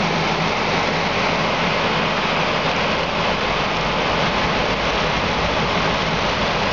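Heavy diesel equipment idling: a steady low engine hum under a continuous hiss.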